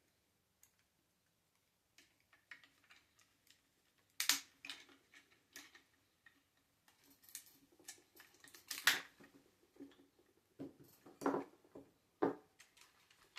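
Hard plastic parts of an RC motorcycle's rider figure crunching and clicking as they are pressed and worked together: irregular crackles with a few sharper snaps, loudest about four and nine seconds in. The crunching comes from pieces that were glued together.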